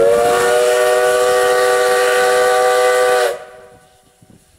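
Steam locomotive's whistle blowing one long blast of several notes sounding together, with a steam hiss over it, cutting off sharply a little over three seconds in.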